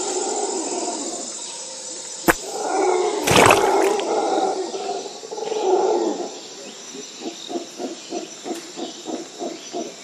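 Loud roaring, animal-like calls with a sharp click about two seconds in and the loudest burst about a second later, then a run of short rhythmic grunts, about three a second, for the last few seconds.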